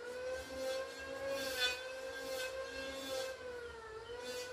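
A small motor whirring steadily, its pitch dipping briefly near the end, with short scraping hisses repeating about every three-quarters of a second.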